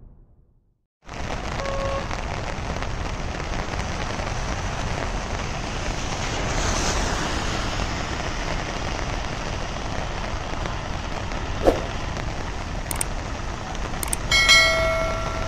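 Steady hiss of rain falling in a heavy downpour. Near the end, a click and a short multi-tone chime from a subscribe-button sound effect.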